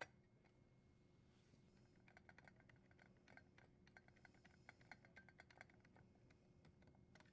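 Faint, irregular metallic clicks and ticks, a few per second, from about two seconds in until near six seconds: a screw being driven in to secure the dishwasher's junction box cover.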